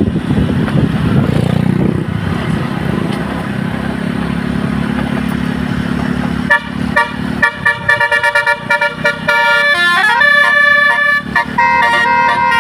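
Steady engine and road noise, then about six and a half seconds in a tour bus's telolet basuri musical air horn starts playing a melody of held notes, with a rising slide in pitch a few seconds later.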